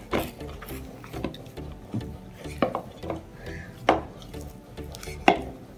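Hands kneading stiff murukku dough in a stainless steel bowl, with a few sharp knocks against the steel, the loudest about four and five seconds in. Background music plays underneath.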